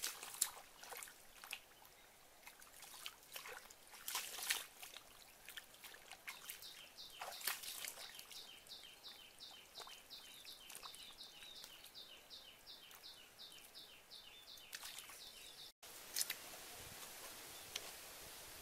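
Hands splashing and scooping in shallow muddy water, in scattered short splashes. From about six seconds in, a high chirping call repeats about three times a second for some nine seconds. Near the end, this gives way to a steady faint outdoor hiss.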